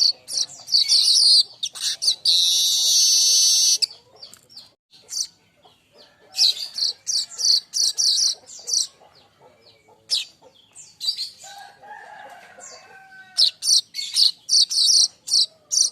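Streaked weaver (manyar kembang) singing: rapid runs of high chattering, ticking notes in bursts that stop and start, with a long sizzling, hissing phrase about two seconds in.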